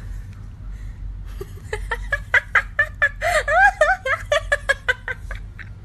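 A dog biting a squeaky toy, setting off a rapid, uneven run of short squeaks and clicks that starts about a second and a half in and stops shortly before the end.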